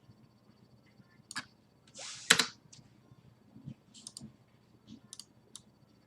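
Scattered light clicks of a computer keyboard and mouse, with a short hissing rustle about two seconds in that ends in one sharp click, the loudest sound.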